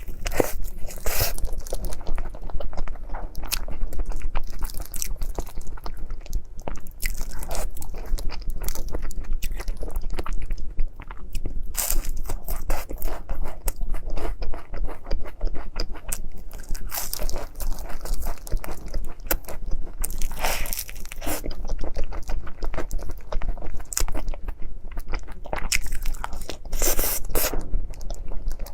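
Close-miked eating sounds: crunching bites into flaky Napoleon (mille-feuille) pastry, with chewing between the bites and a few louder crunches.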